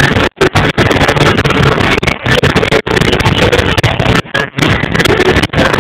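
Live pop concert heard from the audience: amplified music from the PA and crowd noise, badly overloaded on a phone microphone so that it is distorted and drops out briefly several times.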